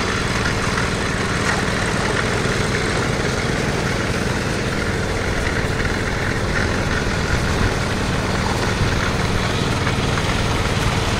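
Ride-on power trowel's engine running steadily as its twin rotors smooth a fresh concrete slab.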